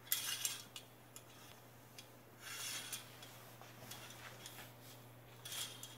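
Metal curtain hooks clinking and scraping along a curtain rod, with fabric rustling, in short bursts near the start, about halfway through and near the end.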